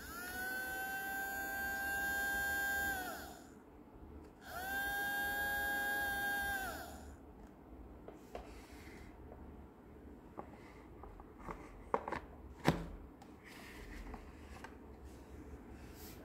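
Small electric water pump in a toy sink's faucet unit whirring, switched on twice for about three seconds each, sagging in pitch each time it stops. Then a few sharp plastic clicks and knocks as the faucet unit is pushed into the sink basin.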